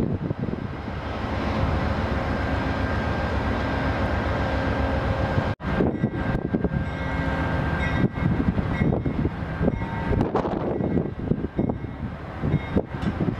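Diesel-electric locomotive (an Amtrak GE Genesis P42DC) running steadily as it rolls slowly toward the listener, a deep engine rumble with train noise. A brief break in the sound comes about five seconds in.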